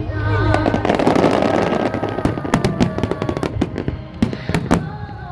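Fireworks bursting in quick succession, with a dense stretch of crackling about a second in, over music playing steadily underneath.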